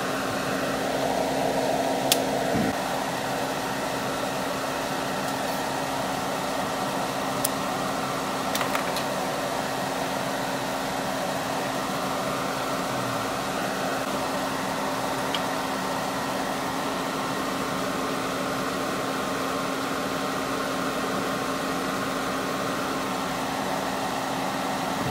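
A small electric fan running steadily, a whirring hiss with a low steady hum under it. A few faint clicks come through, the clearest about two seconds in.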